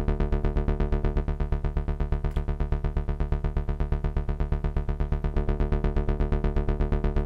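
Distorted synth bass from Ableton's Analog synth, driven through overdrive and saturation, playing the same low note in fast, evenly repeated pulses of about eight a second. The saturation gives the plain sawtooth/square tone a fuller, grittier character.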